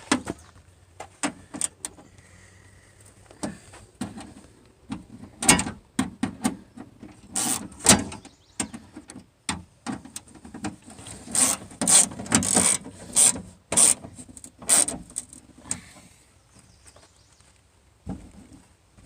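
Irregular clicks, knocks and scraping as parts of a van door's latch and handle assembly are handled and fitted, busiest in the middle and fading toward the end.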